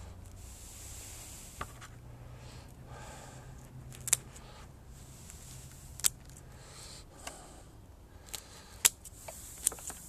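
Several sharp snips of bonsai shears cutting through roots during root pruning, spaced irregularly a second or two apart, over a soft rustling of roots and soil being handled.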